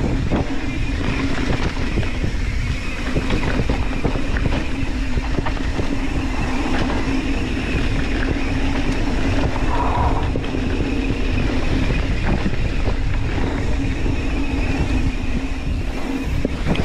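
Mountain bike descending a dirt singletrack: a continuous rumble of tyres on the trail, with frequent rattles and knocks from the bike over bumps and a steady buzz underneath.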